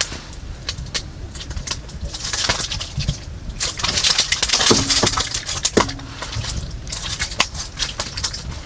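Scattered clicks and crunching, with two brief squeaks about five and six seconds in.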